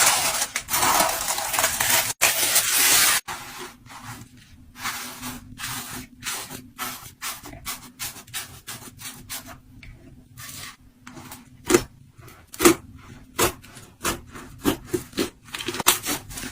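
Slime being handled close to the microphone: about three seconds of continuous squishing and rubbing, then a run of scattered small crackles and pops, a few louder ones toward the end.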